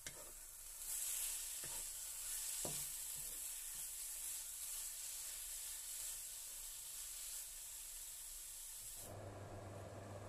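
Grated jicama and chive filling sizzling in oil in a nonstick frying pan as it is stir-fried with a wooden spatula, with a few light knocks of the spatula in the first few seconds. About a second before the end the sizzling stops abruptly and only a low steady hum is left.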